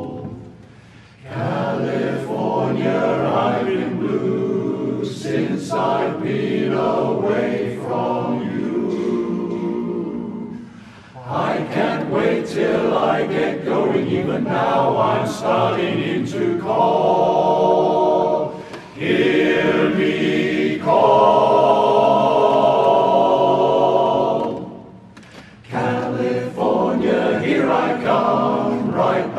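Men's barbershop chorus singing a cappella in close harmony, phrase by phrase, with short breaks between phrases, about a second in, near the middle and a few seconds before the end.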